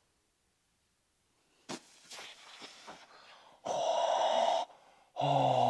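A man's pained breathing and vocal reactions during a deep gua sha massage of his bicep: a loud breathy gasp about two thirds of the way through, then a short voiced groan falling in pitch near the end.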